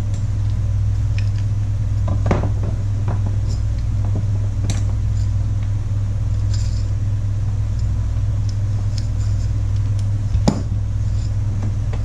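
Small metal clicks and taps from handling the parts of a chainsaw's recoil starter with a screwdriver, over a steady low hum; the sharpest knock comes about ten and a half seconds in.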